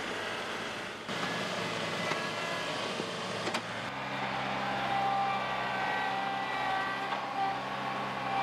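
John Deere 2038R compact tractor's three-cylinder diesel engine running as the front loader digs with a stump bucket. A sharp click comes about three and a half seconds in, and just after it the engine hum settles into a steadier, stronger tone.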